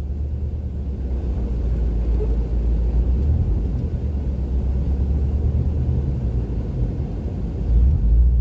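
Honda CR-V driving through snow: a steady low rumble of the moving vehicle, swelling louder for a moment near the end.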